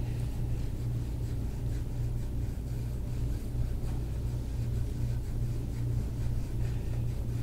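A steady low hum with a slight, even pulse, over faint scraping of a plastic massage tool drawn across oiled skin.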